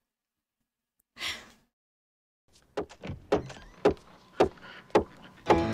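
Footsteps striding across a hard floor, about two steps a second, after a soft breath. Music comes in near the end.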